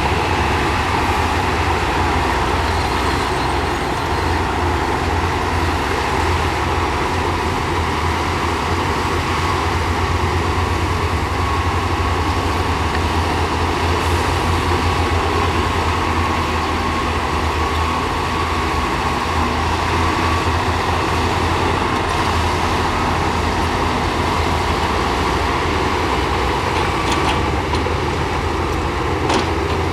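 Heavy diesel earthmoving equipment running steadily, a deep engine rumble that holds the same level throughout, with a few faint clicks near the end.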